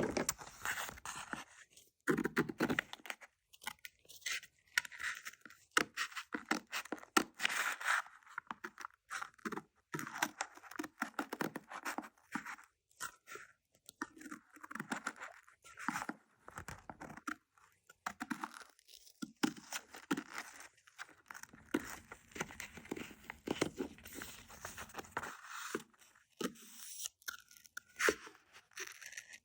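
Paper covered in tape being worked by hand, taped over and cut out: irregular crinkling, crunching and tearing noises in short bursts.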